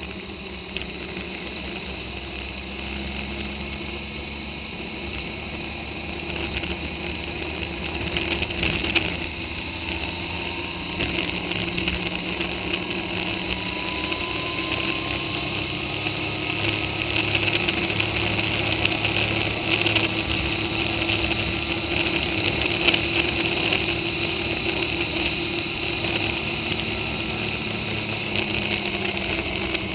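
A vehicle driving at steady road speed: engine running and tyres on rough tarmac, with a steady high whine and a faint pitch that rises slowly through the middle. Short knocks and rattles come from bumps in the broken road surface, clustered about eight seconds in, and the noise grows a little louder toward the end.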